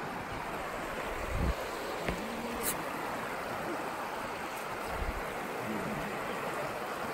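Steady rushing background noise, even and unbroken, with two short low bumps, about a second and a half in and again about five seconds in, and a faint click between them.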